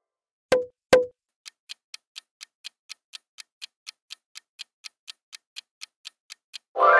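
Countdown-timer sound effect: a clock ticking about four times a second, after two sharp knocks with a short ring about half a second apart. A musical chime begins at the very end.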